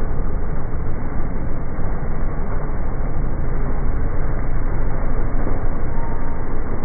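Ride-on lawn mower engine running steadily, heard in slowed-down playback as a low, continuous rumble with no high end.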